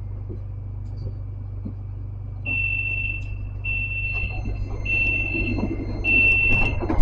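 Tram door-closing warning signal: four evenly spaced high beeps, each just under a second, over the steady low hum of the standing tram car. A loud thump comes at the very end.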